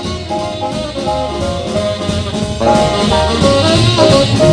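Swing band playing an instrumental passage with no vocals: the horns play held, stepping riff notes over the rhythm section, the band filling out and getting louder about two and a half seconds in.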